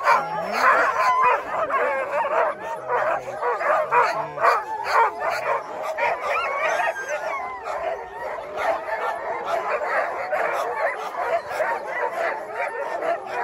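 Many sled dogs barking, yipping and whining at once in a continuous, overlapping chorus.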